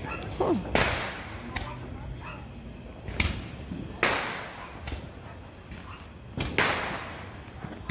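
Consumer fireworks going off: four loud bangs with echoing tails, about a second, three, four and six and a half seconds in, with a few fainter pops between.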